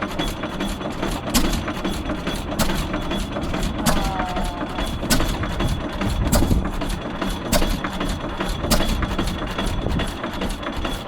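Fairbanks Morse Z series 6 hp single-cylinder stationary engine running just after starting, a sharp beat about every 1.2 seconds over a low mechanical rumble.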